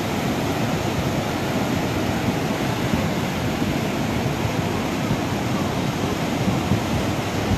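Muddy floodwater of a river in flash flood rushing and churning past, a loud, steady rush of water.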